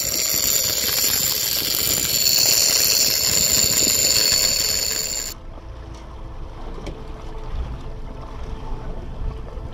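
Big-game trolling reel's drag screaming in a steady high whine as a giant Atlantic bluefin tuna strips line on a long run. It cuts off abruptly about five seconds in, giving way to quieter water noise alongside the boat.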